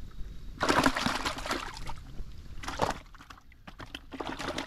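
Water splashing and sloshing in three short bursts, the first and longest lasting over a second.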